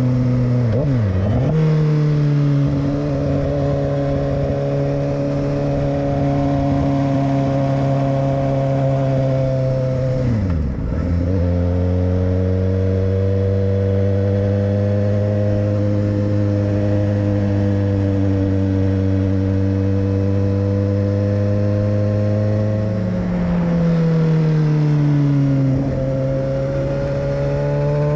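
Motorcycle engine running under way at steady revs, its pitch dipping sharply and recovering about a second in and again about eleven seconds in, then rising and falling again near the end.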